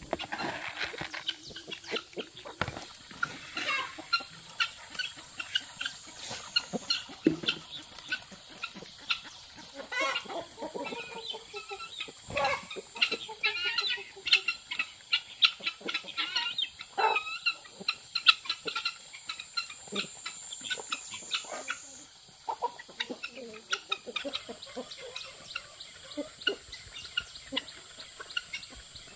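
A flock of chickens clucking as they feed, a dense scatter of short calls and sharp clicks.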